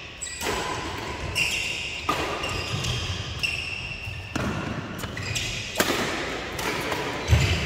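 Doubles badminton rally in a large indoor hall: sharp racket hits on the shuttlecock about once a second, with short squeaks of shoes on the court. A heavier thump near the end.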